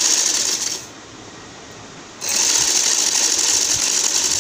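Sewing machine running as it stitches piping onto fabric. It stops for about a second and a half shortly after the start, then runs steadily again.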